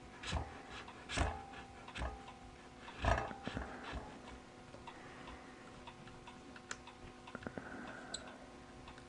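Light clicks and knocks of camera-rig parts being handled and fitted, about one a second at first, then smaller ticks, over a faint steady hum.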